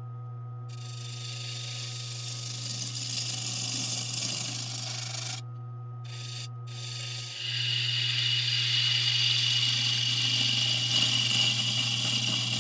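Wood lathe running with a steady motor hum while a turning tool shaves the spinning monkey puzzle wood, the cutting hiss starting about a second in and breaking off briefly twice. After about seven seconds the cutting grows louder and steadier.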